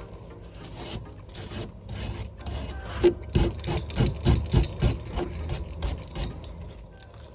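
Scraping and rubbing of metal and plastic at the corroded mount of a car's rear wiper arm, then, midway, a run of about ten knocks, roughly three a second. This is the sound of the corroded arm being knocked and worked loose from its spindle.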